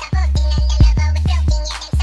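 Electronic music with a deep bass line and a steady drum beat.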